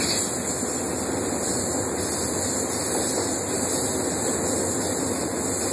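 Steady running noise of a moving diesel locomotive heard from inside its cab: engine and wheels on rail blended into an even roar.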